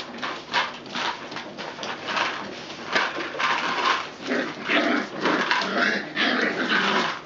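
Puppies play-fighting on newspaper: sheets rustling and an empty plastic bottle crackling as they mouth and drag it, with small puppy whimpers, more of them in the second half.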